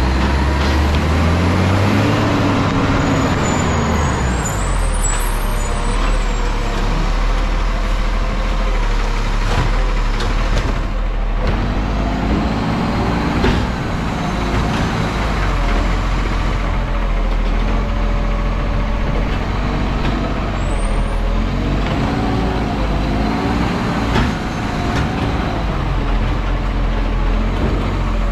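Garbage truck's diesel engine running, its pitch rising and falling three times as it revs up and eases back. There are short high squeals about five seconds in and again near twenty-one seconds.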